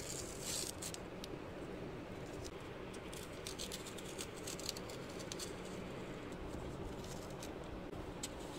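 Washi tape being peeled off watercolor paper: irregular dry crackles and ticks, densest in the first second and again a few seconds in, over a steady low hum.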